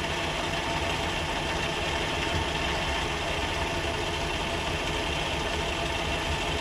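Metal lathe running steadily under power feed, turning down a metal drive shaft.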